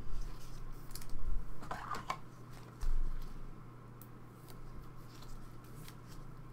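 A trading card in a clear plastic holder handled with gloved hands: soft rustles and a few light plastic clicks, with a low thump about three seconds in, over a steady low hum.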